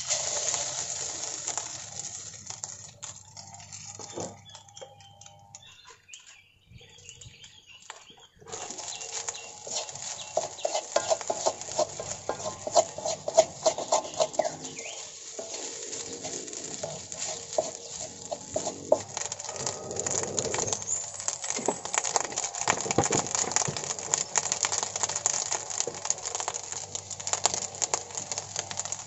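Wooden spatula stirring and scraping fried rice with egg in a metal wok over a wood fire: a dense run of quick scrapes and taps with a frying hiss, dropping off briefly about six seconds in and picking up again about two seconds later.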